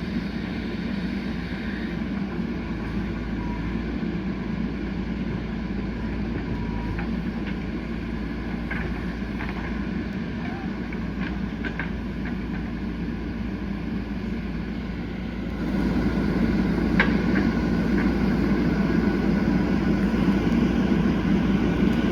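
JCB 3DX backhoe loader's diesel engine running steadily, growing louder about two-thirds of the way through, with a few light clicks and knocks.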